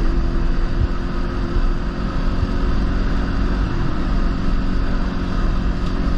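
Kawasaki Versys-X 300's parallel-twin engine running at a steady speed while the bike rides a gravel road. Steady wind and road noise run underneath.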